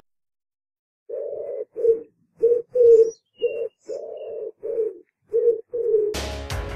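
Rock pigeon cooing call: a run of about nine short, low coos starting about a second in, after dead silence. Music comes in near the end.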